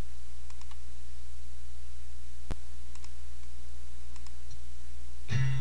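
A steady low hum with a few faint clicks and one sharp click about halfway through; music with guitar comes in near the end.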